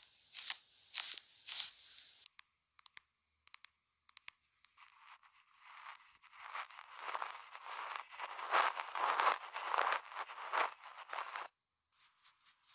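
Close-miked handling sounds while makeup is being applied: a few soft swishes at about two a second, then scattered light clicks, then a long stretch of crinkling and rustling that cuts off suddenly about a second before the end.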